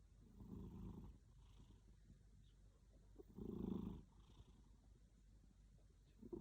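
A sleeping cat snoring: two low, rasping snores about three seconds apart, one with each breath.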